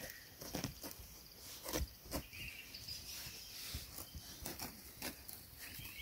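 Quiet outdoor ambience with scattered soft clicks and knocks. A bird chirps faintly about two and a half seconds in.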